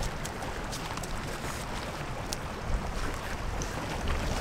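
Steady wind rumbling on the microphone over the wash of choppy lake waves against a concrete shoreline.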